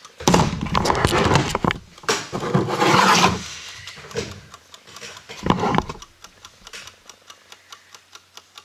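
Rubbing and scraping handling noise for the first few seconds, then a run of small, sharp plastic clicks as LEGO bricks are picked up and pressed together.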